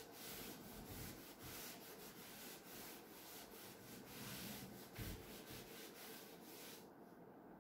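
Cloth duster rubbing chalk off a chalkboard: faint, quick back-and-forth scrubbing strokes that stop near the end.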